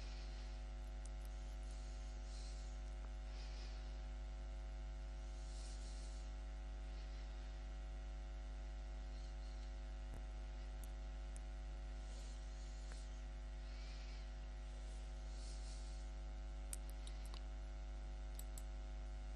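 Steady electrical mains hum: a low drone with a buzz of many fixed tones above it, unchanging throughout, with faint brief hisses now and then.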